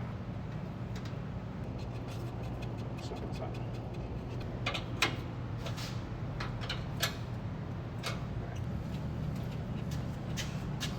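Scattered sharp clicks and taps of hand tools on metal brake-line fittings, over a steady low hum.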